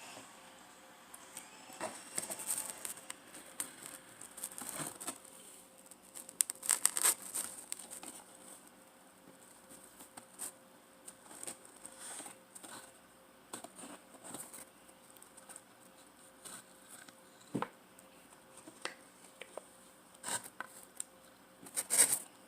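Close-up handling of food and packaging: scattered crinkling, tearing and small clicks and scrapes, busiest about a third of the way in, with one sharper knock near the end.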